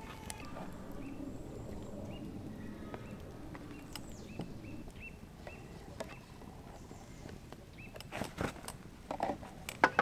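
Small birds calling with short chirps, one at a time, dozens of times over a faint steady background; near the end a few sharp clicks and knocks.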